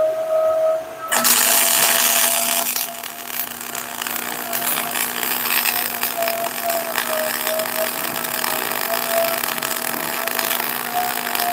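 MIG welder arc crackling steadily as a bead is run on a steel reinforcement plate on an Eaton truck rear axle housing. It starts about a second in and cuts off near the end.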